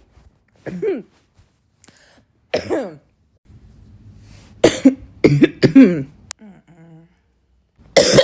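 A woman coughing and clearing her throat in separate bursts: single coughs early on, a hard run of several coughs about halfway, and another loud cough near the end. It is the lingering tail of a cough that she puts down to allergies and the change of seasons.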